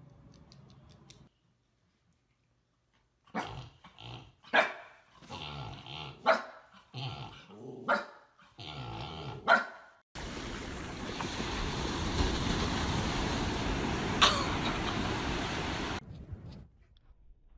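Husky puppy barking in a string of short, sharp barks and yips, about a second apart. Then a steady rushing noise for about six seconds, with one short sharp sound in it.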